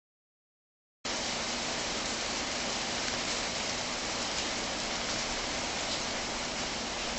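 Steady downpour of rain during a thunderstorm: an even hiss that starts about a second in, with no thunder heard.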